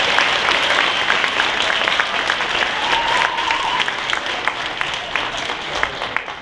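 Audience applauding, the clapping thinning out and fading away toward the end.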